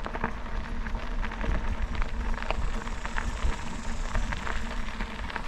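E-bike tyres rolling over gravel: a steady low rumble with many scattered small clicks and crunches.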